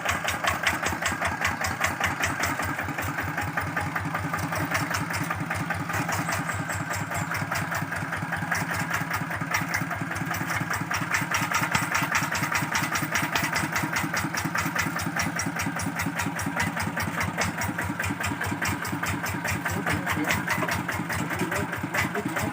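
Kubota RD65 single-cylinder diesel engine on a Quick G600 hand tractor running steadily, with an even, rapid chugging of firing pulses.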